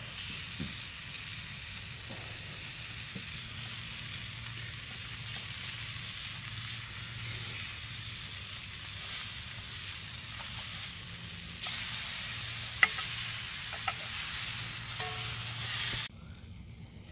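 Thick steaks sizzling in a frying pan set on campfire embers: a steady hiss that gets louder about two-thirds of the way through, with a couple of sharp pops, then cuts off abruptly near the end.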